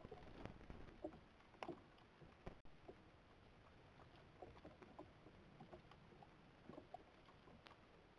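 Faint, irregular rustling and small clicks, as of a wild boar moving and foraging in leaf litter beside a steel box trap, with a brief dropout about two and a half seconds in.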